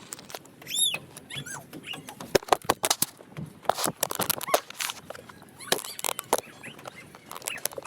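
A child's short, high-pitched squeal about a second in, among irregular knocks and clatters.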